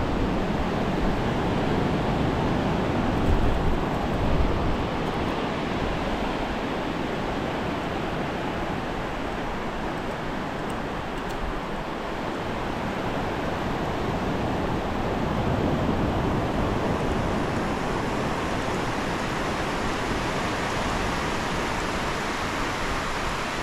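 Ocean surf breaking and washing up the beach, a steady rush of noise that swells and ebbs slowly.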